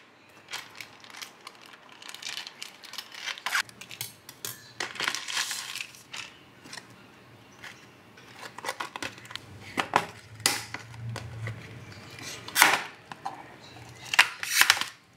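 Plastic food packaging being handled: a thin plastic bag crinkling and rustling as it is pulled off a plastic oden tray, then the tray's clear plastic lid crackling as it is prised open near the end, with a few sharp crackles standing out.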